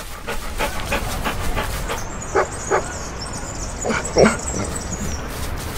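Dog barking sound effect: four short barks, two about two and a half seconds in and two around four seconds, the last the loudest. Before them comes a quick even patter of steps, and a thin high tone holds through the middle.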